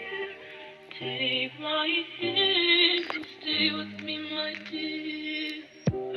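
A song playing: a sung vocal with a processed, synthetic-sounding quality over sustained low accompaniment, in short phrases.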